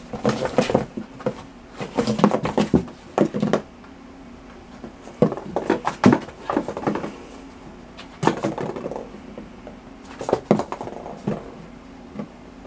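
A cat scrabbling and pouncing inside a cardboard box: its paws and claws scratch and thump the cardboard in bursts of a second or two, about five times, with short pauses between.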